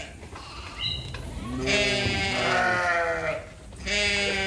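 Sheep bleating: a long, wavering bleat overlapped by a second one from about one and a half seconds in, then another bleat starting near the end.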